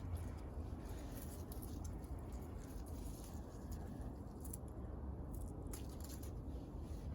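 Tomato plants being handled during picking: leaves rustling and small scattered clicks and snaps as fruit is pulled or cut off the stems, over a low steady rumble.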